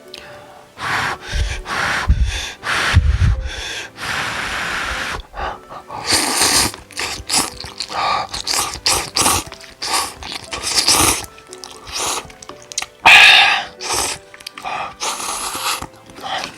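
Cup noodles being slurped and chewed close to the microphone: a string of short, loud bursts, with one longer slurp lasting about a second near the middle of the first half, over soft background music.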